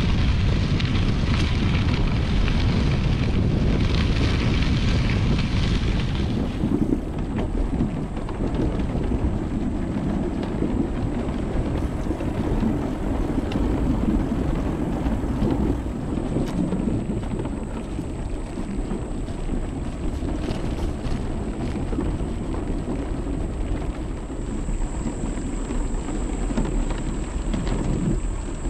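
Bicycle tyres crunching over gravel. About six seconds in, this gives way to a lower, steadier rolling rumble with faint ticks as the tyres run onto wooden boardwalk planks.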